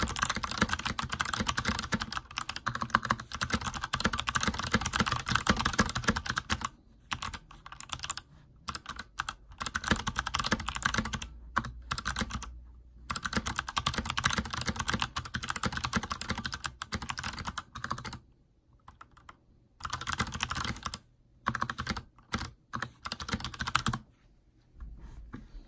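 Fast typing on a mechanical keyboard with clicky Kailh Box White switches, dense runs of keystrokes broken by short pauses and dying away near the end.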